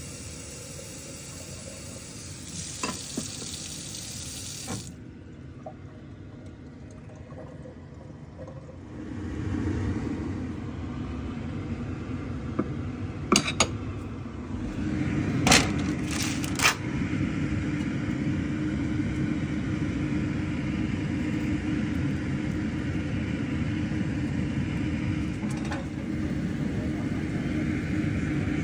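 Kitchen sounds: a steady hiss that cuts off about five seconds in, then a steady low hum, with a few sharp knife strikes on a wooden chopping board around the middle as butternut squash is diced.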